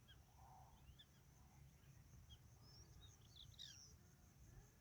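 Faint, scattered bird calls: short high chirps and whistles, several clustered about three and a half seconds in, over a faint low background hum.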